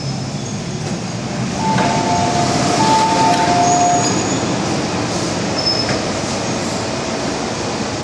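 MTR Island Line M-Train at an underground station platform: a steady rumble from the train and the station. From about two seconds in, a pair of steady tones sounds for about two seconds over it.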